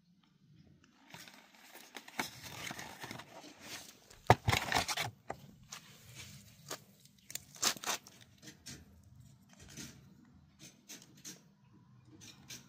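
A cardboard wiper-blade box is torn open and the packaging crinkles and rustles, with a sharp knock about four seconds in. Scattered clicks and scrapes follow as the blades are handled out of it.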